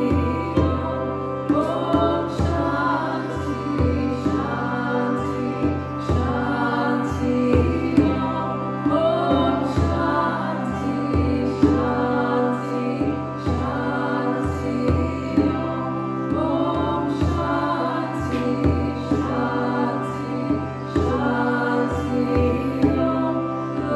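A woman singing a wavering melody while striking a hand-held frame drum in a steady beat, over a sustained drone.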